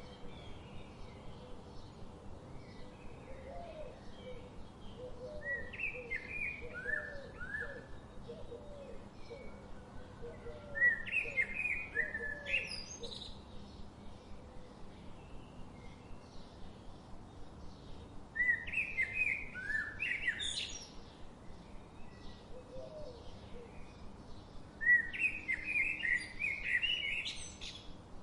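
Birdsong: one bird repeats a song phrase four times, about every seven seconds, each phrase ending in a quick rising high flourish. Underneath, a lower-pitched call repeats in a steady run of short notes.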